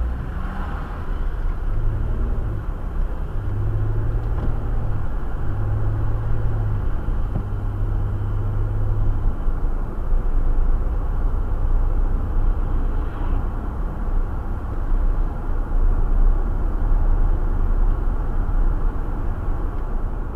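Cabin noise of an Audi A6 3.0 TDI diesel on the move: a steady low rumble of engine and tyres. A low engine drone comes and goes several times in the first half.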